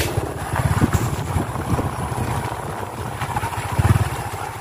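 Small motorcycle engine running while riding, with wind rumbling on the microphone.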